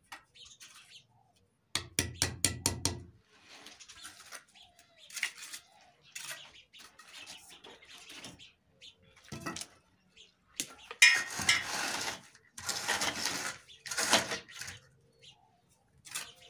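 Scraping and swishing of a straightedge and hand tools spreading a thin sand-and-cement topping over a freshly compacted concrete floor, in irregular strokes, with a quick run of about six strokes about two seconds in.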